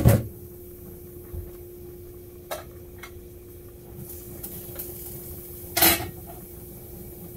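Kitchenware clattering: a loud knock of dishes or pans at the start and another about six seconds in, with a couple of light clicks between, over a steady low hum.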